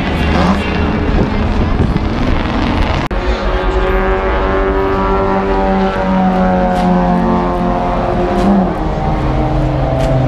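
Racing car engine running on the circuit, a steady multi-toned engine note that drifts slowly and drops in pitch about three-quarters of the way through. Before that, for about the first three seconds, there is a rougher, noisier mix of track sound that ends abruptly.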